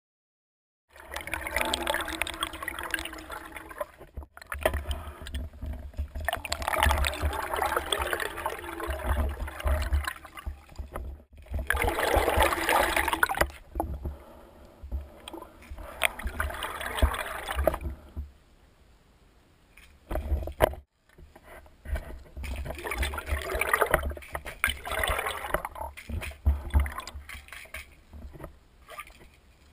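Muffled pool water sloshing and gurgling, heard underwater, in irregular surges with low thumps and a quieter stretch about two-thirds of the way through.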